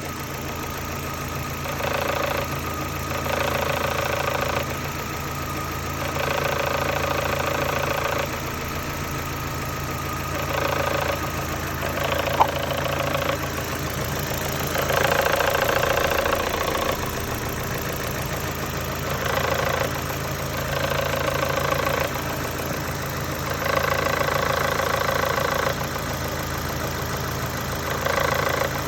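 Opel Astra 1.8 four-cylinder petrol engine running hot with a knock, the fault its owner is showing. The sound swells for a second or two every few seconds, and a single sharp click comes about twelve seconds in.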